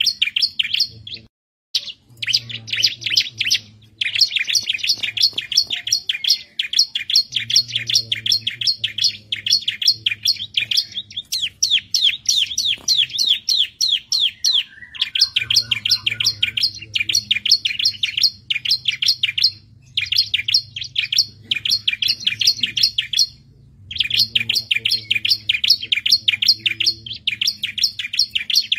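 Bar-winged prinia (ciblek) singing continuously: rapid runs of high, sharp chirping notes, broken by short pauses every few seconds.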